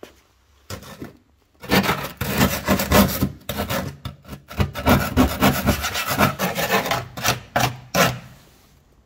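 Flat screwdriver blade scraping rust and flaking paint off the steel wheel-arch lip of a Volkswagen Golf Mk2 GTI. There is a short scrape about a second in, then a long run of quick strokes, then a few separate strokes before it stops near the end.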